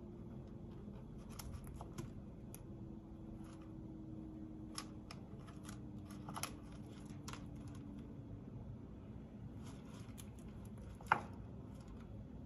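A chinchilla gnawing an apple-wood and rattan dumbbell chew toy: quiet, irregular crisp snips and crunches as its teeth shear the wood and rattan, with one sharper crack near the end.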